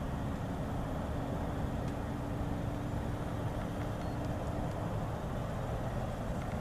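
Norfolk Southern freight train approaching, a steady low rumble of its diesel locomotives, with a faint steady hum that fades out about five seconds in.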